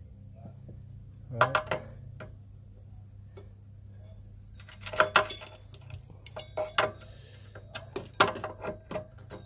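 Steel roller chain rattling and clinking against a sprocket as it is worked by hand onto a go-kart clutch sprocket. Clusters of short metallic clinks come about five seconds in, again a second and a half later, and near the end.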